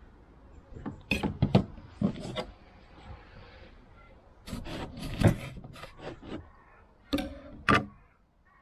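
Kitchen knife cutting a lemon on a wooden chopping board: a series of sharp knocks of the blade on the board, the loudest about five seconds in, with soft scraping and handling of the lemon halves between.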